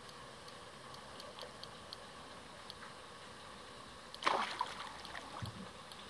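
A single short splash in the lake water about four seconds in, over faint, scattered high ticks.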